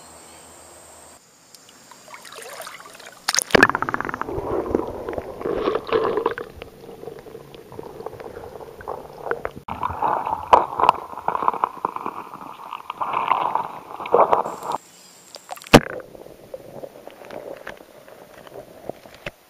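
Muffled water gurgling and sloshing heard through an action camera held under water while fish are released by hand. The sound changes abruptly several times, with a couple of sharp knocks, the loudest about three-quarters of the way through.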